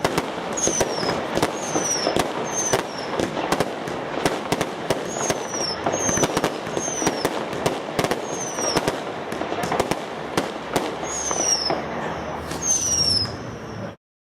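Tornado consumer firework going off: a dense run of crackling pops and bangs mixed with repeated short whistles that each fall in pitch. The sound cuts off suddenly near the end.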